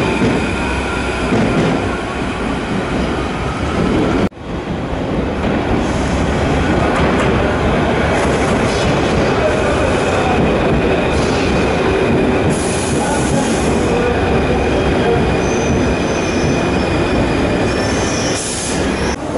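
Paris Métro MF 01 train pulling into the station: a steady rolling rumble with steel wheels squealing on the rails. The sound drops out abruptly for a moment a little over four seconds in.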